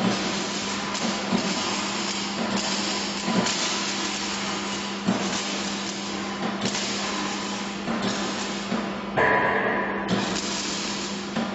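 A machine runs steadily with a constant hum, while sharp knocks land irregularly about once a second. About nine seconds in, a brief higher tone sounds with a burst of louder noise.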